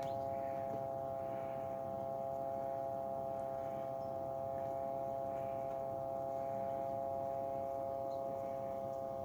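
Egg incubator's fan motor humming steadily, a constant hum of several fixed tones.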